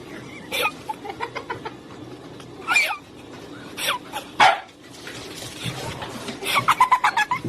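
A dog barking several times, with a quick run of barks near the end.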